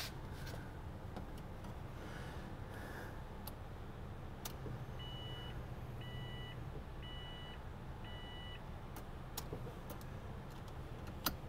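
Four short electronic beeps about a second apart, each a two-note tone, over a steady low rumble and a few faint clicks.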